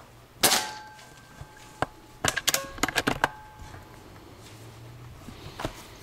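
A single shot from a Benjamin Marauder Woods Walker .22 precharged pneumatic air pistol carbine: one sharp crack with a brief ring about half a second in. About two seconds later comes a quick run of clicks and clacks, then a soft knock near the end.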